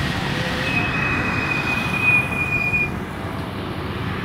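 Road traffic, mostly motorcycles passing, as a steady wash of engine and tyre noise. About a second in, a thin high squeal holds for about two seconds, falling slightly in pitch.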